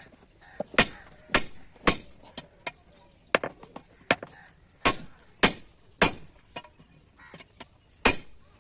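Blacksmith's hammer striking steel rod on an anvil while forging a 16 mm die. The blows are sharp and ringing and come mostly in runs of three, about half a second apart, with lighter taps between the runs.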